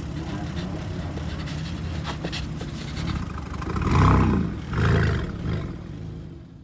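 Logo sound effect: a steady low rumble with scattered clicks, then two loud roars about a second apart that fade away.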